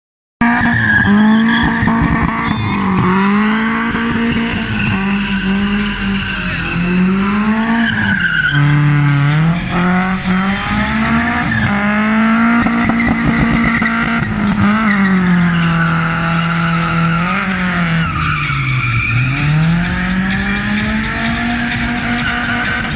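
BMW E36 318is 1.8-litre four-cylinder engine revving hard while the car drifts, the engine note rising and falling continuously and dropping lower twice, about nine seconds in and again near nineteen seconds. The tyres squeal and skid throughout.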